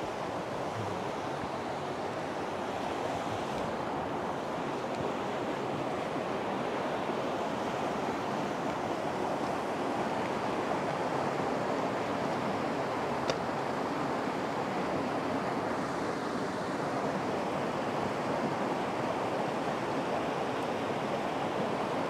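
Waterfall and cascading stream water rushing steadily over rocks, with one faint click about thirteen seconds in.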